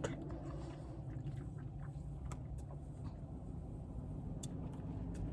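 Low, steady rumble of a car's cabin, with a few faint clicks.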